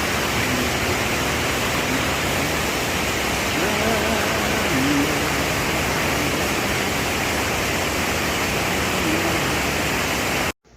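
Steady, loud rushing noise with faint voices under it; it cuts off abruptly near the end.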